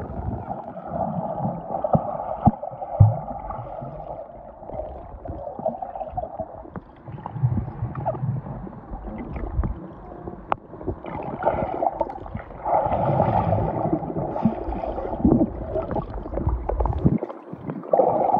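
Muffled underwater sound from a submerged camera: a steady swirling, gurgling water noise with scattered soft knocks and bubbles as a swimmer moves through the pool, growing louder about two-thirds of the way through.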